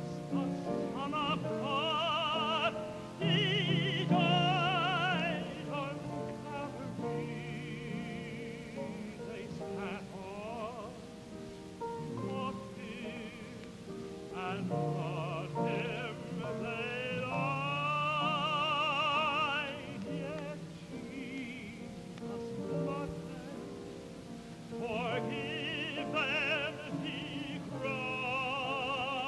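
Gospel singing: a voice holding long notes with wide vibrato over sustained lower accompanying notes, swelling in phrases.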